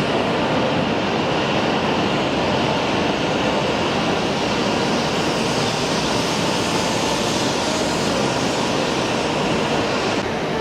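Shinkansen train running at speed: a loud, steady rushing noise, the highest hiss dropping away shortly before the end.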